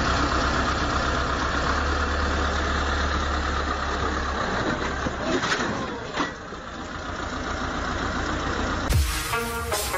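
Heavy vehicle engine running steadily, heard as a rough, noisy rumble with a low hum. Music starts near the end.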